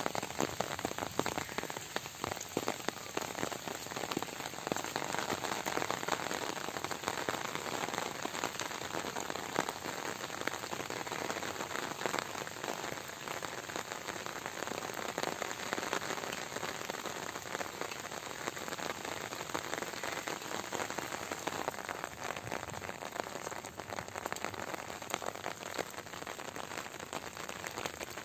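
Steady rain falling: a dense, even patter of many drops on grass and standing water.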